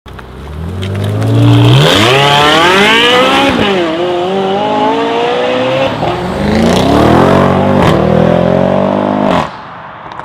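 A high-performance car engine accelerating hard: the revs climb steeply, drop back at an upshift, and climb again twice. The sound falls away abruptly near the end.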